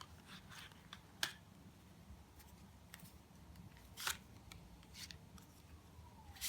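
Tarot cards being handled on a table: a few faint, scattered clicks and snaps, two of them sharper at about one and four seconds in.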